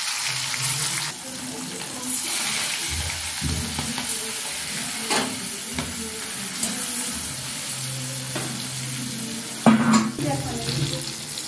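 Hilsa fish pieces frying in hot oil in a metal kadai: a steady sizzle, broken by a few sharp knocks, the loudest a little before the end.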